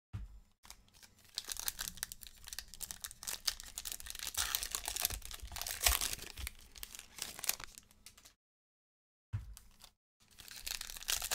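Plastic wrappers of Topps 2021 Series 1 baseball card packs crinkling and tearing as they are opened by hand, in a dense run of crackles. It stops for about a second near the end, then resumes.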